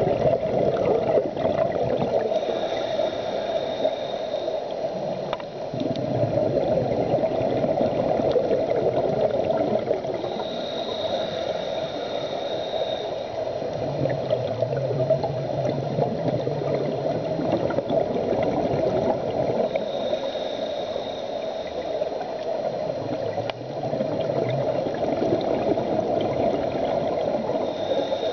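Scuba breathing heard underwater: a high hiss of the demand regulator on each inhale, about every eight or nine seconds, then a low bubbling rumble as the exhaled air escapes. A steady underwater rush runs beneath it.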